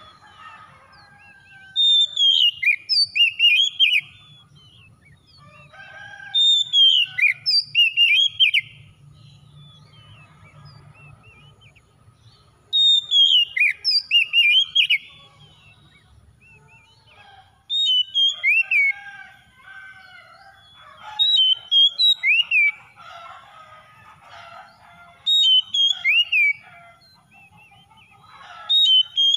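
Oriental magpie-robin (kacer) in full song. It gives loud phrases of short, sweeping whistled notes, one phrase about every four seconds, with softer chattering notes between them.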